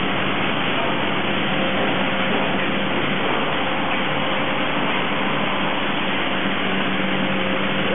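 Steady industrial background noise: an even hiss with a low, constant hum running through it.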